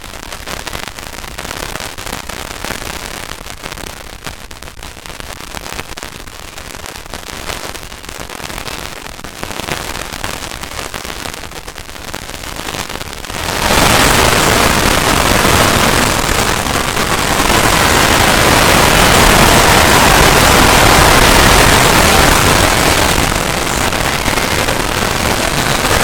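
Harsh, digitally distorted noise from a plug-in-processed sound effect, with no clear pitch. It starts as crackling static, then about halfway through jumps suddenly to a much louder, dense hiss that runs on.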